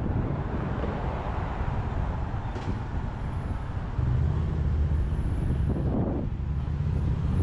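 City street traffic: cars driving past with a steady rumble of engines and tyres, which gets louder about four seconds in.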